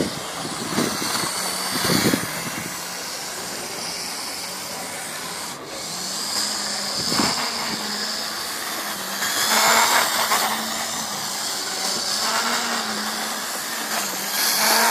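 Lima OO gauge Class 47 model locomotive's small electric motor and gears whining steadily as it runs round a loop of track, with a few knocks and a louder stretch partway through.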